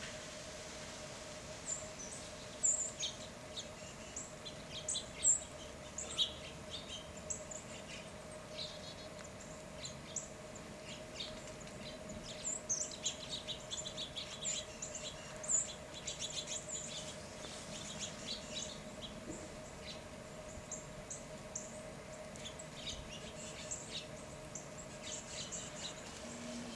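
Small songbirds giving many short, high chips and twitters, scattered and overlapping, over a steady faint hum.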